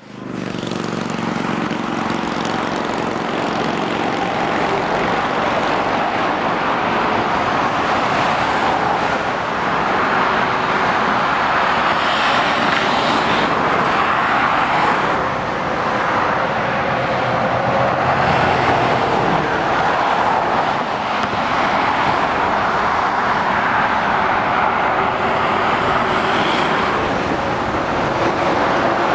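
Motorway traffic passing below: heavy lorries and cars, a steady rush of tyre noise with diesel engines running, swelling and easing as vehicles go by.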